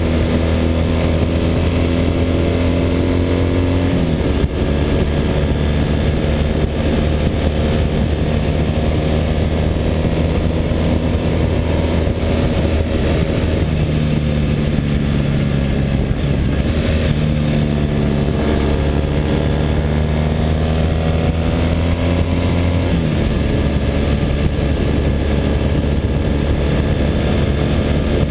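Triumph parallel-twin motorcycle engine running at road speed under a rider-mounted camera, with steady wind rush over the microphone. The engine note drops sharply about four seconds in and again late on.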